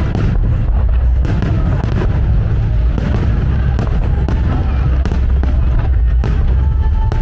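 A fireworks display: shells bursting with about eight sharp reports over a steady low rumble, with music playing along.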